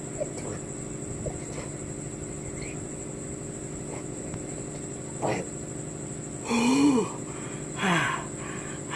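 A man grunting with effort during push-ups: two short strained vocal sounds that rise and fall in pitch, about six and a half and eight seconds in, with a fainter one just before. Under them run a steady low hum and a steady high whine like crickets.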